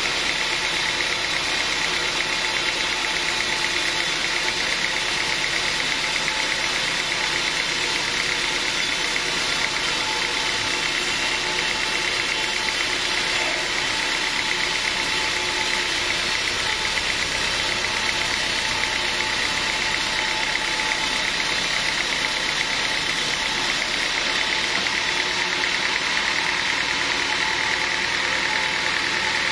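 Sawmill machinery running steadily, a constant loud mechanical drone with no breaks or changes in pitch.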